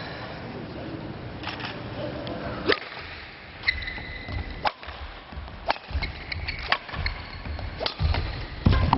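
Table tennis rally: the ball clicking sharply off rackets and table, about once a second through the second half.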